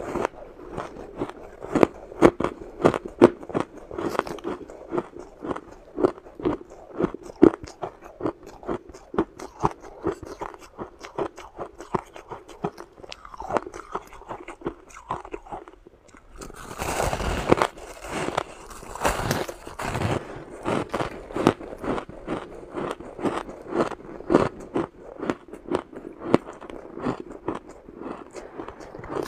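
A person biting and chewing chunks of packed shaved ice close to the microphone: a steady run of crisp crunches, several a second. A denser, louder stretch of crunching comes about seventeen to twenty seconds in.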